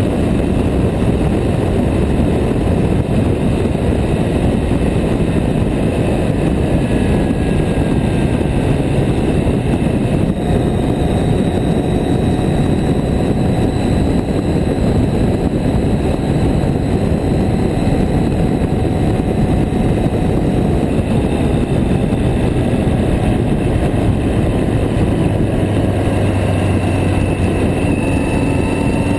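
Yamaha Diversion motorcycle's air-cooled inline-four engine running steadily at road speed, with wind rushing over the microphone.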